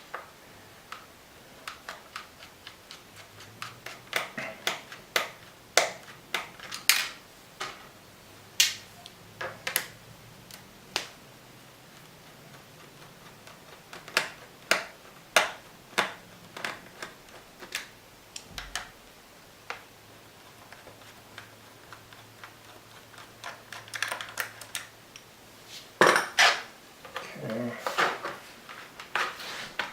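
Irregular sharp clicks and taps of a screwdriver, small screws and the plastic case of an Acer laptop as the screws on its back are undone, with a bunch of quicker clicks near the end.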